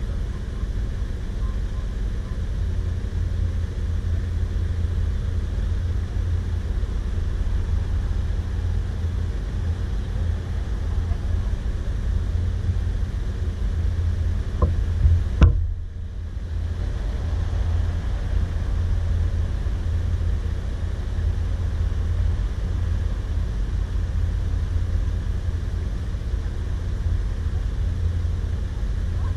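Motor vehicle driving: a steady low rumble, with two short knocks about halfway through, the second the loudest.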